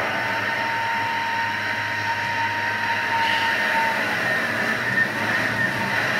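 A Thermomix kitchen machine runs at high speed, mixing a stiff streusel dough. It makes a loud, steady whirring with a high whine.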